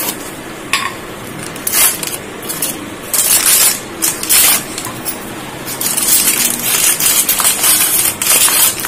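Kitchen handling noises while baking powder is fetched and scooped out: a run of short rustling and scraping bursts, coming in clusters about two seconds in, at three to four and a half seconds, and from six seconds to near the end.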